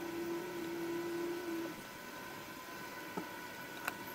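A steady mechanical hum stops a little under two seconds in, followed by two light clicks of small carburetor parts being handled.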